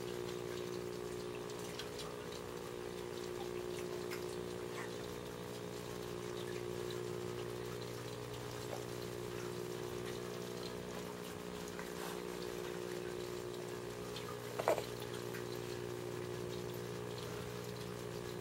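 Aquarium filter running: a steady electric motor hum with water trickling and splashing in the tank. A single short click near the end.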